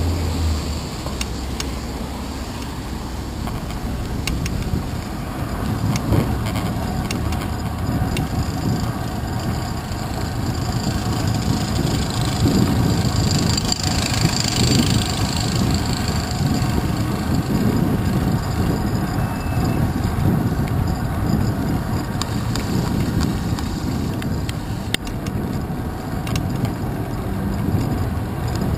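Steady rumble of wind and road vibration picked up by a handlebar-mounted GoPro Hero 2 in its housing as a bicycle rides a wet street, with motor traffic around it. A high hiss swells and fades about halfway through, and there are a few light knocks.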